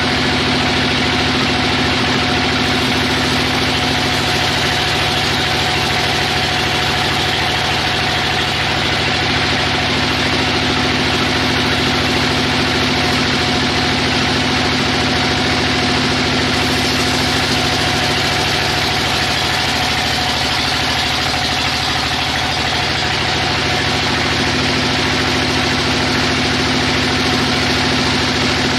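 Sawmill machinery running steadily, a constant engine-like hum with an even hiss over it.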